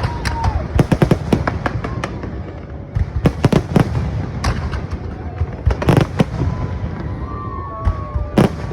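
Fireworks display going off: a dense, irregular run of sharp bangs and cracks from bursting shells, several coming in quick clusters, with people's voices underneath.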